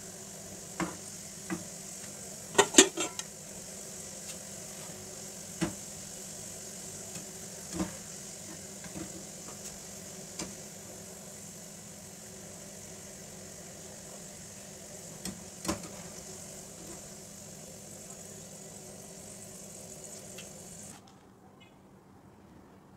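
Sliced onions frying in hot oil in a stainless steel pan: a steady sizzle, with a perforated metal skimmer clinking and scraping against the pan every few seconds. The loudest clinks come in a quick cluster about three seconds in, and the sizzle cuts off about two seconds before the end.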